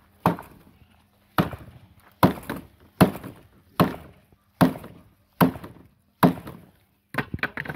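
A thick wooden log pounding the steel nipple into the end of an HDPE pipe: eight heavy wooden knocks, about one every 0.8 s, then a flurry of lighter quick knocks near the end.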